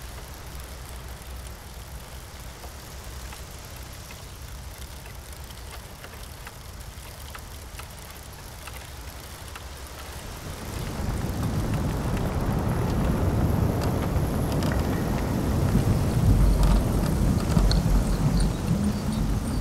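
Wind buffeting the microphone of a camera on a moving mountain bike, a low rumble with scattered light ticks and rattles. It gets much louder and rougher about ten seconds in.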